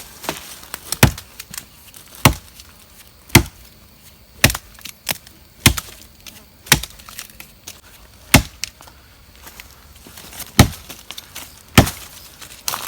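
Chopping into a tree stump with a blade to split it open: sharp wooden strikes about once a second, with a few lighter knocks between them.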